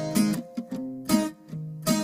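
Music: an acoustic guitar strummed in a steady rhythm, its chords ringing between strums.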